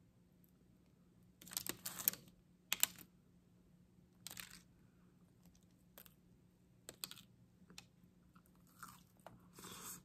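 Crisp baked crust of a cheese-filled garlic dough ball crackling as hands tear it open, in a string of short crackly bursts, the loudest about two to three seconds in.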